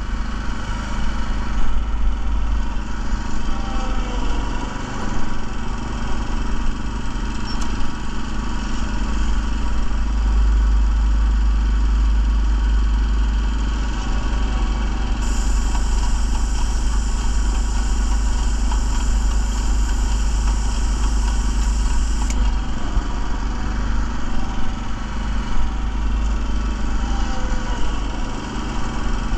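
Small gasoline engine of a walk-behind airless line striper running steadily. A high hiss starts suddenly about fifteen seconds in and stops sharply about seven seconds later, the sound of paint spraying from the striper's gun.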